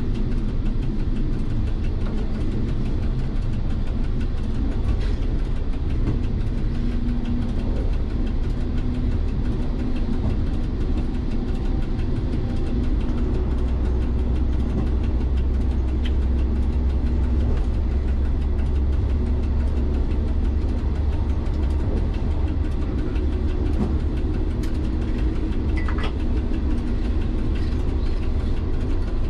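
MVTV-2 catenary maintenance railcar's diesel engine running and its wheels rolling on the track, a steady low rumble heard from the cab. The deep drone grows heavier a little before halfway, and there are a few faint clicks.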